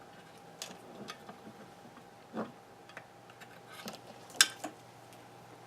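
Scattered small clicks and taps of tools and parts being handled on a workbench, with a duller knock a couple of seconds in and one sharp click near the end as the loudest. A faint steady hum runs underneath.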